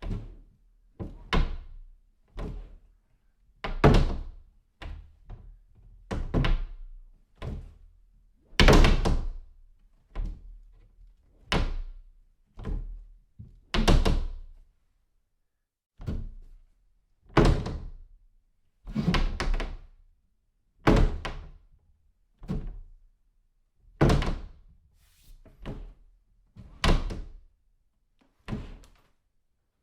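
Doors being shut one after another, about two dozen separate closes, each a sudden thunk with a short ringing tail and a near-silent gap before the next; some are louder slams than others.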